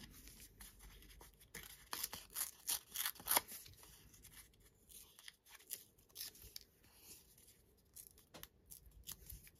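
A sheet of craft paper being torn by hand in short rips to give it a jagged edge, with crackly rustling of the paper. The rips are busiest and loudest in the first three and a half seconds, then thin out to occasional light rustles.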